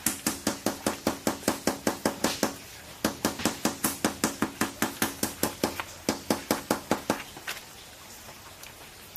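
Claw hammer tapping quickly and evenly around the rim of a PVC pipe ring set through a tarpaulin, about six light strikes a second, turning the pipe rim over to clamp the tarp. The tapping pauses briefly about two and a half seconds in, resumes, and stops about seven seconds in.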